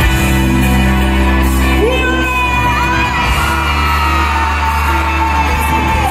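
Loud amplified pop music with a sung melody, long held notes over a steady bass, played over a concert hall's sound system, with audience whoops and cheers mixed in.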